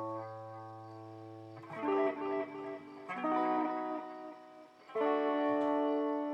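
Electric guitar played through a BOSS DD-8 digital delay pedal in Warp mode: sustained chords ring into each other, with a new chord struck about every one and a half seconds.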